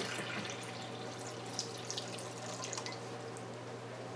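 Water dripping and trickling into a white plastic water bowl, a patter of small drips that thins out after about three seconds, over a low steady hum.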